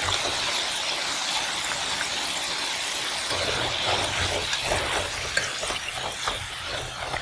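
Cornflour-coated potato fries sizzling in hot oil in a wok during their first, low-flame shallow fry. A steady hiss, with scattered crackles and pops that become more frequent from about halfway through.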